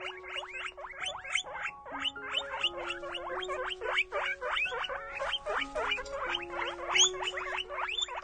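A fast series of short animal calls that sweep up and down in pitch, about four or five a second, over background music with held notes.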